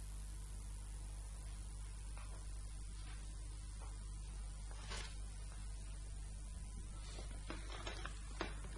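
Steady low electrical hum with constant background hiss, a few faint clicks about halfway through and near the end.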